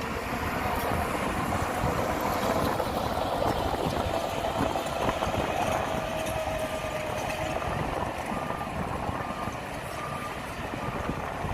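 Diesel engine of heavy earthmoving machinery running steadily under load, its pitch sagging partway through. Short, evenly spaced reversing-alarm beeps sound over it in the second half.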